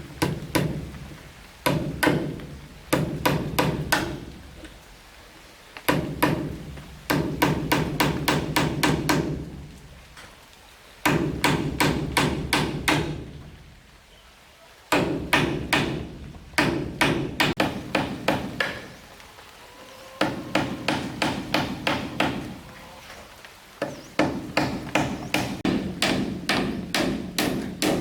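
Hammering on wood: runs of quick, even blows, about four a second, each run lasting a second or three before a short pause, the timber ringing low under the strikes.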